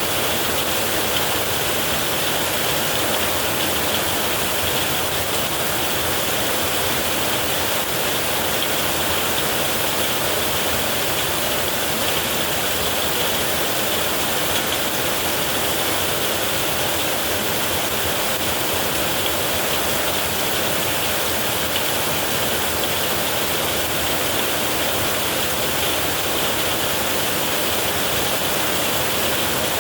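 Heavy rain falling steadily on a metal roof: an even, unbroken hiss of rain.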